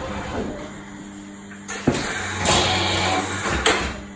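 HOLZMA HBM 26/1 CNC drilling center working through a cycle: a sharp clack about two seconds in, then a louder stretch of steady motor hum with a rushing noise and a second clack, dropping off again just before the end.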